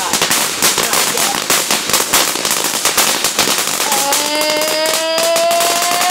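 Ground fountain firework spraying sparks with a dense crackle of small pops. About four seconds in, a long tone joins and rises slowly in pitch.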